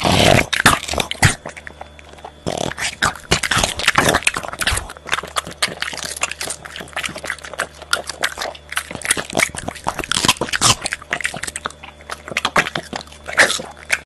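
A French bulldog crunching and chewing raw cucumber and leafy vegetables close to a microphone: dense, irregular crisp bites and wet munching.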